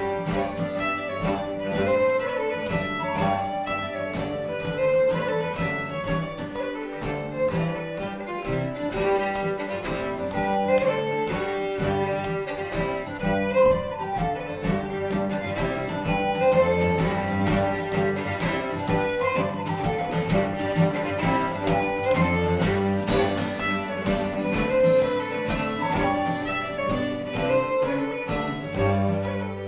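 Small acoustic string band playing a tune: violin, cello and acoustic guitar together, with the violin most prominent.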